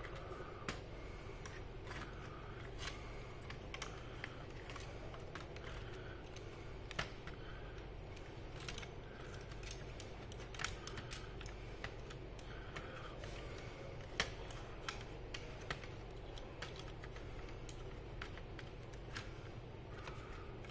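Scattered light clicks and taps of plastic and metal as a motherboard is fitted back into an HP G6 laptop's chassis, over a faint steady hum.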